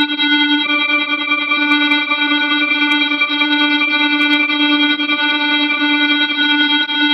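Emergency alert alarm tone: one continuous, loud, buzzy tone held at a single low pitch, rich in overtones, with no break or change in pitch.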